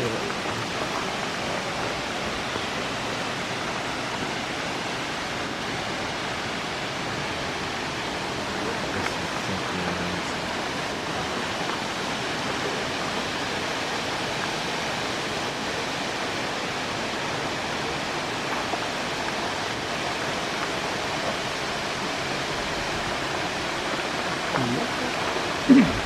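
Waterfall rushing steadily, an even, unbroken hiss of falling water from the falls of Bear Run.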